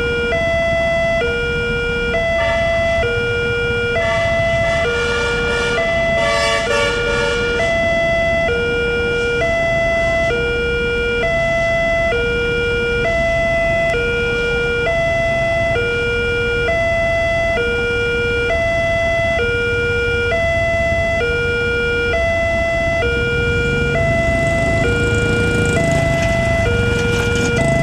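Electronic warning alarm of an Indonesian railway level crossing sounding with the barrier down: two tones, one low and one higher, taking turns about every three-quarters of a second, the signal that a train is coming. Near the end a motorcycle engine grows louder as it comes up to the crossing.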